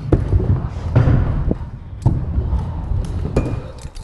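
Stunt scooter's wheels rolling over wooden skatepark ramps, a continuous low rumble, with several sharp knocks about a second apart as the deck and wheels hit and land on the ramp surfaces.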